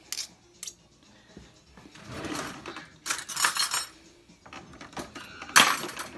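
A metal fork clinks a few times on a ceramic plate, then metal utensils rattle and clatter as a kitchen drawer is rummaged through, with a loud clatter near the end.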